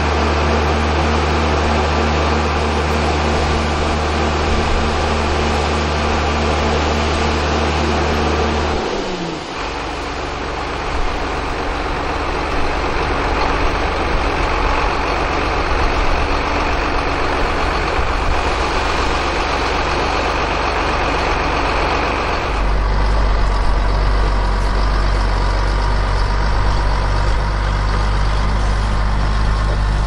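Heavy diesel engine running steadily. About nine seconds in its pitch glides down as it slows, and a little after twenty seconds the sound shifts to a deeper, slightly louder running tone.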